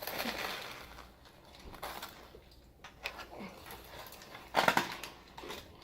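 Close-miked eating sounds: a sandwich being handled, bitten and chewed, in irregular crackly crunches, with a louder crunch about four and a half seconds in.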